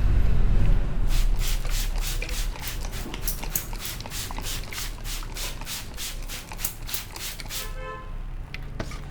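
A masseur's hands tapping rapidly on a client's head in a quick, even rhythm of about four strikes a second, stopping near the end, over a low rumble of traffic.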